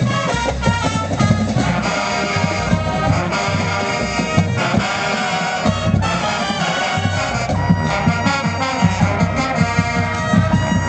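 Marching band playing, with brass carrying the tune over a steady drum beat.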